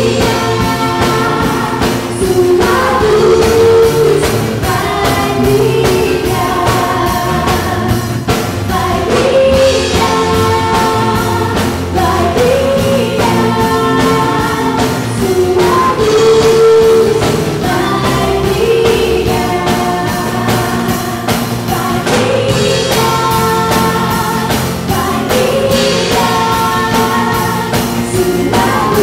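Live worship band playing a gospel song: women singing lead and backing vocals into microphones over a drum kit and acoustic guitar, with a steady drum beat.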